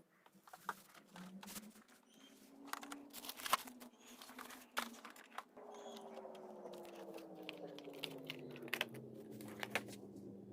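Parcel packaging being handled and torn open: crinkling, tearing and sharp crackles. In the second half a steady hum comes in, with a tone that slides down in pitch.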